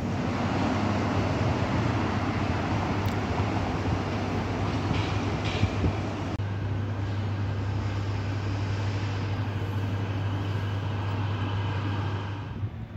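Steady rumble and noise of a moving vehicle heard from inside it, likely a train. About six seconds in, an abrupt change leaves a steadier low hum with background noise, which drops away near the end.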